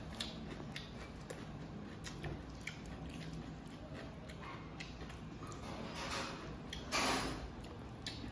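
Close-up eating sounds: chewing, lip smacks and wet squishing of noodles and curry eaten by hand, with small clicks throughout and a louder, brief slurp near the end.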